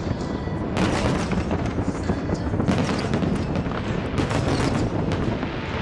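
Fireworks display: a steady barrage of shell bursts and dense crackling, with fresh volleys of sharp reports about a second in, near three seconds, and again past four seconds.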